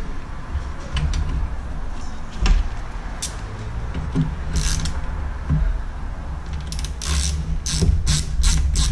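Hand ratchet clicking as a radiator fan mounting bolt is run in: a few separate metal clicks and knocks, then from about seven seconds in a quick regular run of ratchet strokes, about three a second. A steady low hum runs underneath.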